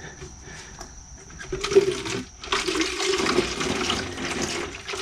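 Old engine coolant pouring out of a car's cooling system and splashing into a plastic jug held under it. The pour starts about one and a half seconds in, breaks off for a moment, then runs on steadily.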